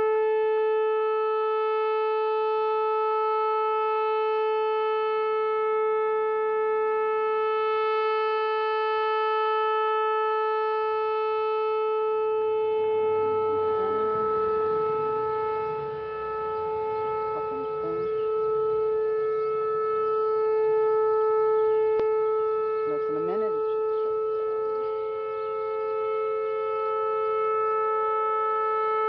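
Whelen WPS-4004 electronic outdoor warning siren sounding a steady, unbroken tone during its three-minute test.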